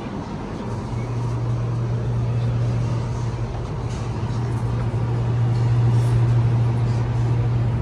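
Metro train running, heard from inside the carriage: a low rumble with a steady low hum that sets in about a second in, the whole sound growing gradually louder.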